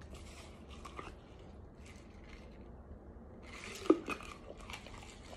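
Chunks of eating starch being bitten and chewed: faint, soft, irregular crunches, with a louder run of crisp crunches about four seconds in.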